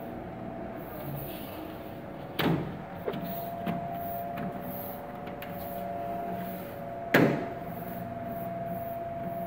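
Two sharp knocks about five seconds apart, with a few lighter taps between them, as a pane of 4 mm glass is handled and pressed into its drywall opening; a steady hum runs underneath.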